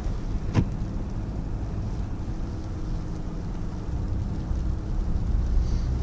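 Steady low rumble of a car's engine and tyres heard from inside the cabin while driving slowly on a snow-covered street, with a single sharp knock about half a second in.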